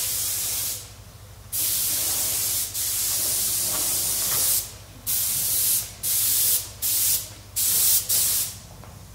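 Compressed-air paint spray gun hissing as it sprays. It goes in one long stretch of about three seconds, then in several short bursts, each cut off sharply as the trigger is let go. It stops shortly before the end.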